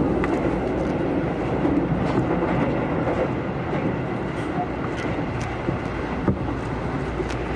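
Tokyo Metro Hibiya Line train running at speed, heard from inside the passenger car: a steady rumble of wheels and motors with a few sharp clicks scattered through.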